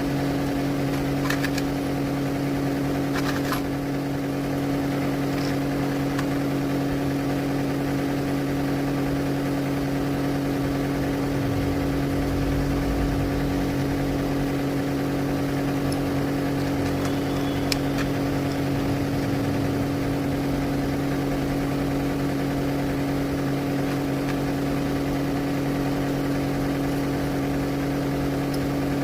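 A steady mechanical hum of constant pitch, with a few faint clicks.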